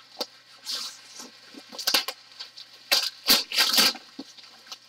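Plastic bubble wrap rustling and crinkling as hands pull it off a cardboard tube, in irregular crackling bursts that are busiest about three to four seconds in.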